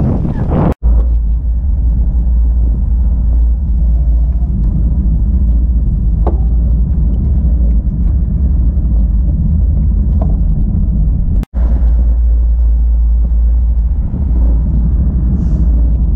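Steady, heavy low rumble of wind buffeting the microphone of a camera carried by a running athlete, with brief crowd chatter in the first second. The sound drops out abruptly twice, about a second in and again about eleven seconds in.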